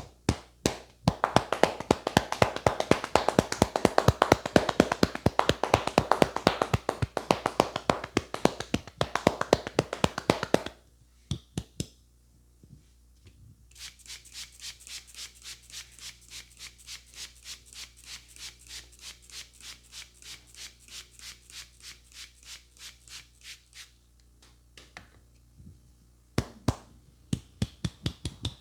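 Hands striking a person's head in a percussive head massage, in rapid rhythmic slaps. A fast, loud run of about six strikes a second lasts some ten seconds; after a short break comes a lighter, crisper run of about three taps a second, and fast loud strikes start again near the end.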